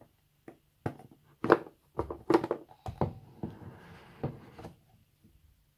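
Hands handling a smartphone's cardboard box and packaging: a string of taps and knocks, with a brief rustle about three and a half seconds in.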